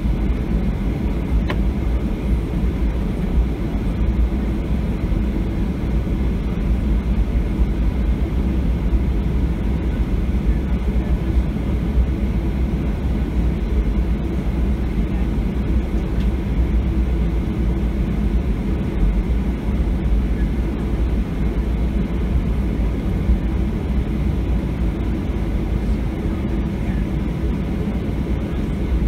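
Steady low rumble inside the cabin of a Boeing 737-700 taxiing after landing, its CFM56 engines at idle, with one faint click about a second and a half in.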